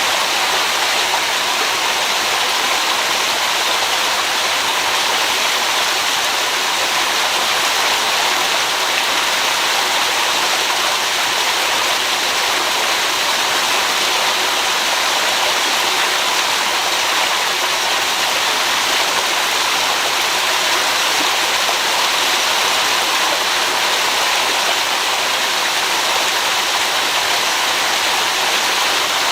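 Flowing water rushing steadily, with no change in level.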